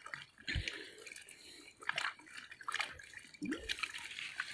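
Faint water sounds from a small muddy pond: scattered small drips and light splashes on the surface, with a soft low thump about half a second in.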